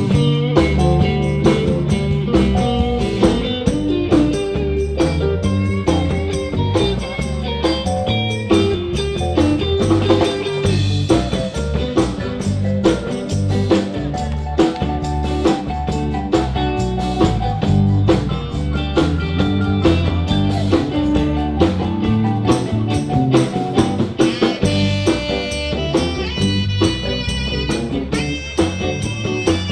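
Live band playing an instrumental passage: electric guitar over a drum kit with a steady beat.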